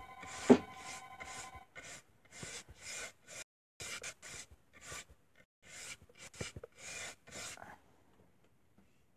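Paintbrush stroking chalk paint across a wooden stool top, short scratchy strokes about two to three a second that stop near the end. A sharp knock comes about half a second in, and a telephone rings during the first couple of seconds.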